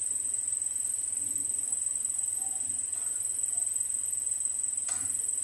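Steady high-pitched hiss, with a metal slotted spoon stirring thick chickpea curry in a steel pan; one sharp click of the spoon against the pan near the end.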